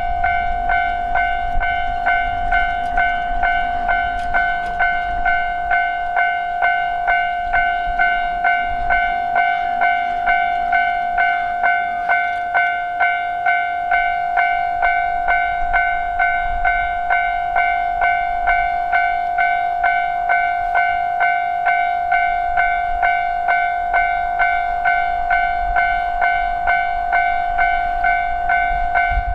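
Japanese railway level-crossing alarm ringing its repeated 'kan-kan' warning tone, about two strokes a second, steadily. A low rumble sits underneath near the start and the end.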